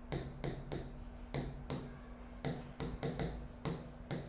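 Marker tip tapping and scratching on a writing board as a word is written: a string of light, irregular ticks, about three or four a second.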